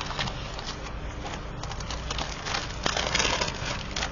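Sheets of craft paper rustling and crinkling as they are handled, with a louder spell of rustling about three seconds in.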